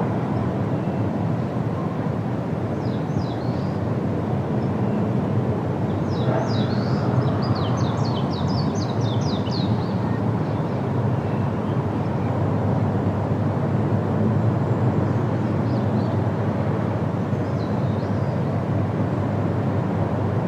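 Large waterfall rushing with a steady roar of falling water. A small bird chirps over it in quick high runs, briefly about three seconds in and at length around the middle.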